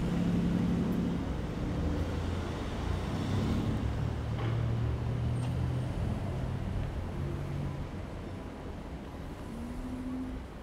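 Street traffic: a motor vehicle's engine running close by, loudest in the first few seconds and easing off after about eight seconds.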